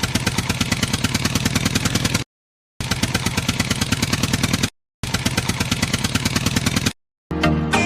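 A rapid, even mechanical clatter like a small engine running, heard in three bursts of about two seconds, each cut off abruptly.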